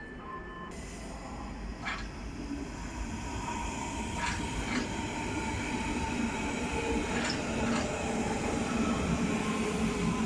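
A train rolling into the station, growing steadily louder, with pairs of sharp clacks as its wheels pass over rail joints and a faint steady whine.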